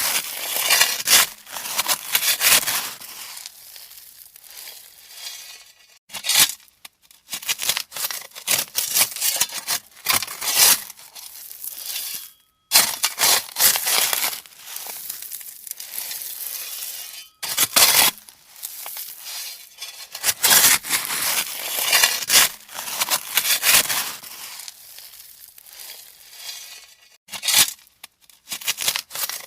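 A shovel scraping and crunching into gravel: repeated gritty strokes in runs of a few seconds, with several short breaks.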